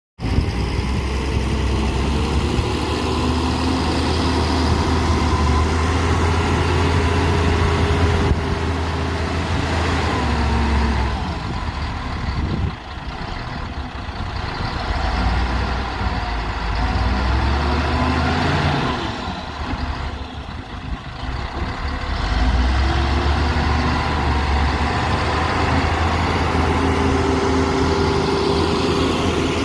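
Heavy earthmoving machine's diesel engine running steadily. It eases off twice in the middle and rises and falls in pitch as it is throttled.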